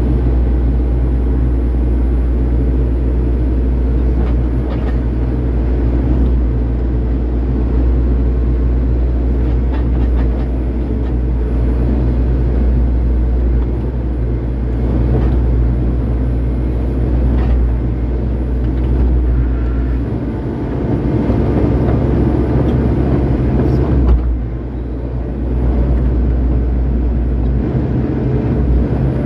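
Excavator's diesel engine running steadily under hydraulic work as the bucket moves dirt, heard close from the operator's seat, with a few short knocks along the way.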